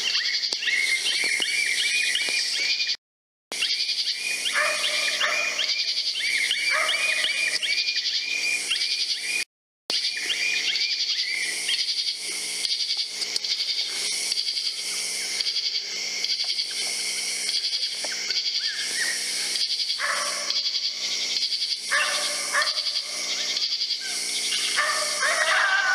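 Electronic predator caller playing high-pitched animal calls in repeated phrases. The sound cuts out completely twice, about three and ten seconds in.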